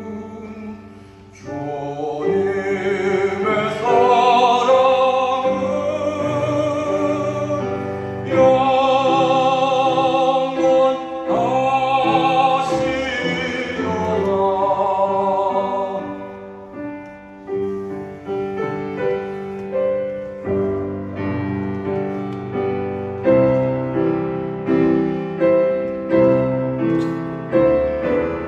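A man sings a praise song solo through a microphone, with wide vibrato, over grand piano accompaniment. About halfway through the voice stops and the piano plays on alone in a run of chords.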